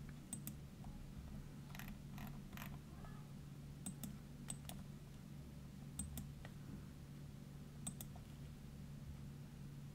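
Scattered clicks of a computer mouse and keys, singly and in quick pairs, over a steady low hum.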